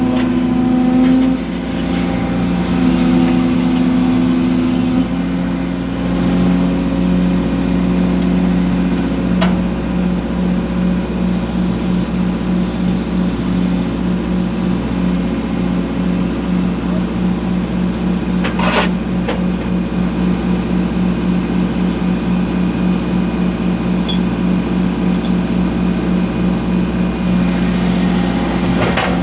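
Hydraulic excavator's diesel engine running steadily at work, a loud low drone that settles into a rapid, even pulsing about a third of the way in, with a higher steady tone over it in the first few seconds. A single sharp knock about two-thirds of the way through.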